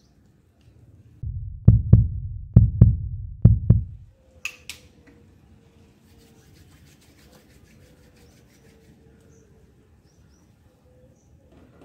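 A run of heavy low thumps, about six in close pairs over two and a half seconds, followed by two sharp clicks, then a faint steady hum.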